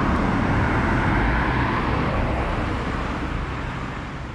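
Road traffic passing on the adjacent road: a steady noise with a heavy low rumble that swells about a second in and then slowly dies away near the end.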